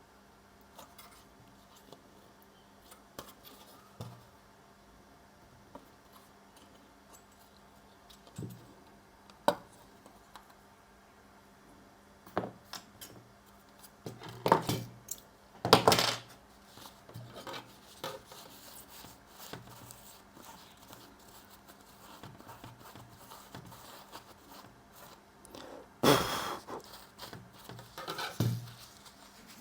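Small tools and parts being handled and set down on a workbench: scattered clicks and taps, with louder clatter about halfway through and again near the end.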